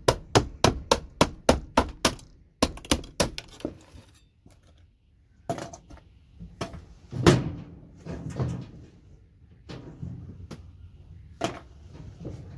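A hand tool striking circuit boards as connectors are knocked and pried off: a quick run of sharp metallic taps, about four a second, for the first three or four seconds, then scattered knocks with one heavier thump a little past the middle.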